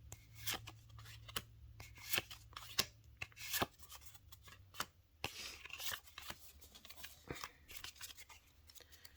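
Yu-Gi-Oh! trading cards handled by hand as a pack is gone through: a faint run of irregular snaps and slides as the cards are flicked past one another, over a low steady hum.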